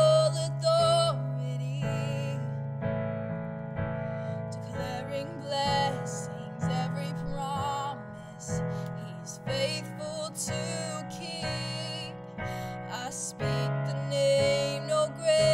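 A woman singing while accompanying herself on a digital piano, sustained piano chords under her voice, with vibrato on held notes.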